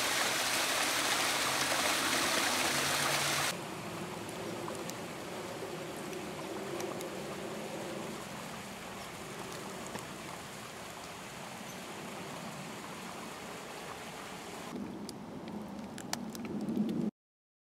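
Small woodland stream trickling and splashing over icy rocks, which stops abruptly after about three and a half seconds. Quieter open-air background follows, with scattered faint crackles that grow busier and louder near the end.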